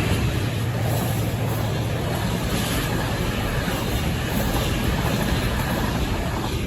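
A train hauled by a Class 68 diesel locomotive going by: a steady rumble of wheels on rail with a low engine hum underneath.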